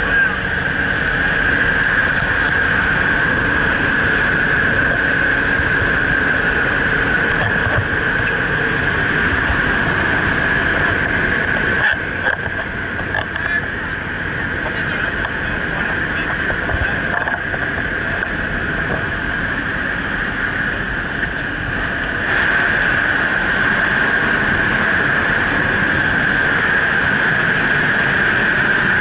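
Jump plane's engine and propeller running at a steady drone, with wind rushing in through the open door. A strong steady high tone runs through it. The level drops somewhat for about ten seconds in the middle.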